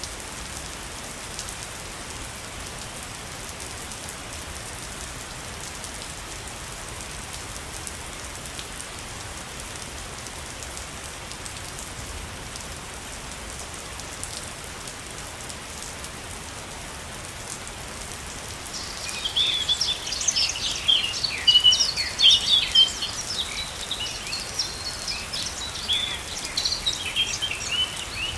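Steady rush of a waterfall. About nineteen seconds in, birds start chirping and trilling loudly over it, in quick, busy bursts.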